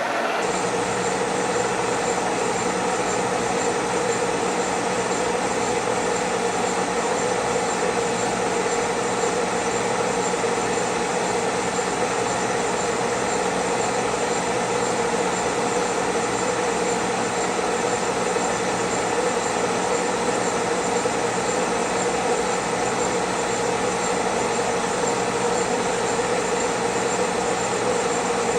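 Kearney & Trecker horizontal milling machine running steadily, its horizontal spindle turning a boring head through a light cut in a counterbore. The gear train gives a steady whine over the machine noise.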